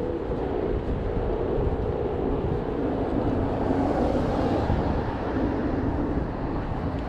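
Wind buffeting the microphone of a chest-mounted action camera on a moving road bike, mixed with the hum of road traffic; a hiss swells and fades about four seconds in.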